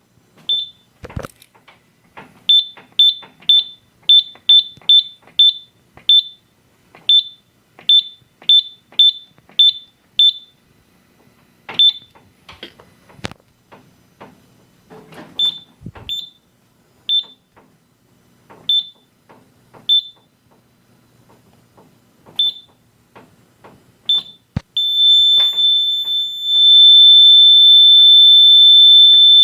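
Simplex 4100U fire alarm control panel's piezo sounder giving short, identical high beeps at irregular intervals, with faint clicks between them. About 25 seconds in it switches to one steady, unbroken high tone.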